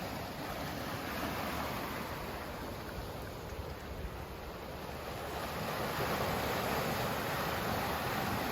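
Sea waves washing in, a steady rushing that eases a little and then swells again over the second half.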